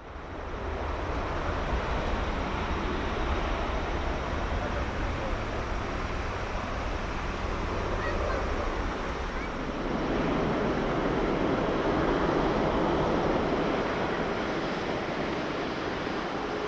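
Jet engine noise from a Boeing 777-200ER's twin Rolls-Royce Trent turbofans: a steady, deep roar with a heavy low rumble, growing louder about ten seconds in as the airliner rolls for take-off.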